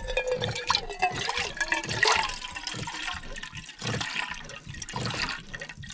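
Water running from a van's sink tap into a small cooking pot as it is filled.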